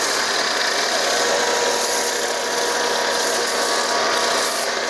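STARQ ST2400U electric pressure washer running steadily while spraying through a foam cannon: a constant hiss of the spray over the steady hum of the motor and pump.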